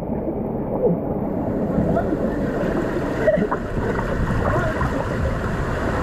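Water rushing and splashing around an inflatable raft as it slides down a water-slide channel, a steady rush that gets hissier about two seconds in.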